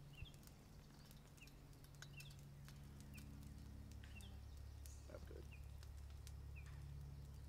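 Near silence: faint outdoor ambience with short high chirps about once a second, a few faint clicks and a low steady hum.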